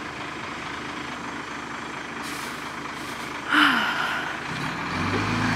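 Cummins 8.3 straight-six diesel of a school bus running, with a short hiss about three and a half seconds in. The engine grows louder and deeper near the end.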